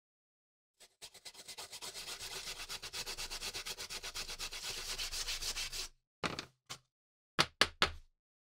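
Hand wire brush scrubbed rapidly back and forth over a rusty steel pruning saw blade, several strokes a second for about five seconds, taking off surface rust. Then a few short scrapes and knocks as the blade is handled.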